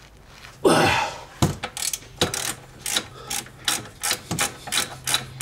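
Ratchet wrench clicking in short, irregular runs as a bolt in a BMW E39's front suspension is worked from underneath, with one brief louder noise about a second in.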